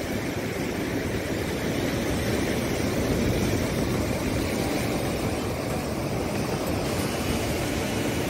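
Sea surf washing and breaking over shoreline rocks in a steady rush, with wind rumbling on the microphone.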